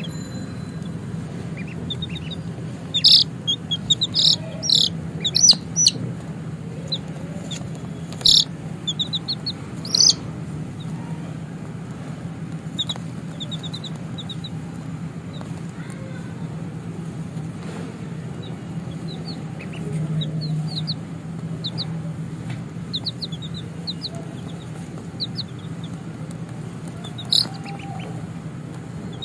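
Baby chicks peeping: short, high-pitched peeps, loudest in clusters a few seconds in and again around eight to ten seconds, then softer runs of quick peeps. A steady low hum runs underneath.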